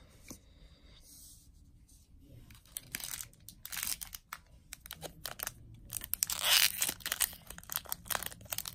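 Foil wrapper of a Magic: The Gathering booster pack being crinkled and torn open by hand: a run of sharp crackles and rips starting about three seconds in, the loudest tear about two-thirds of the way through.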